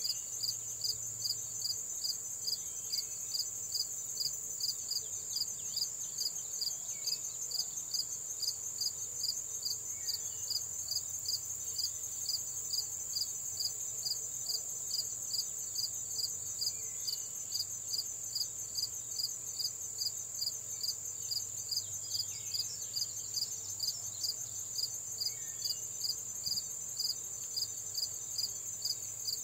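Insects in a summer field: a steady high buzz with an insect chirping evenly, about two and a half chirps a second, over it, and a few faint bird chirps now and then.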